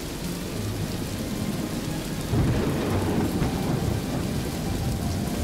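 Thunderstorm: heavy rain falling steadily, with a low rumble of thunder swelling about two seconds in.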